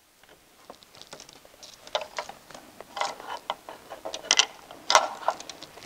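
A power-up cable's plastic plug being handled and pushed into the port on a Polaris snowmobile's side by the footwell: scattered small clicks and rattles, busier from about two seconds in.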